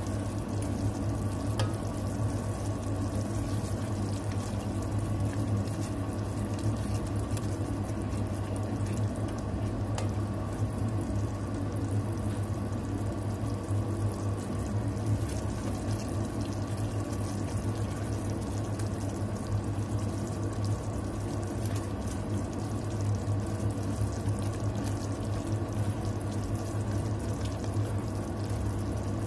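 A thin honey-soy sauce with sesame seeds simmering and bubbling in a stainless steel pot, stirred now and then with a wooden spoon, over a steady low hum.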